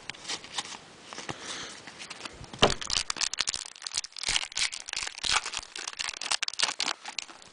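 Trading-card pack wrapper crinkling and tearing as a pack is opened and the cards are handled. Light rustling at first, then a dense run of sharp crackles from about two and a half seconds in.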